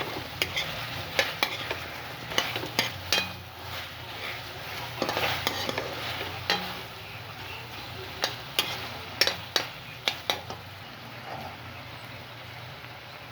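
Food stirred in a pan, a utensil clicking and scraping against it in a string of irregular sharp taps over a steady sizzle.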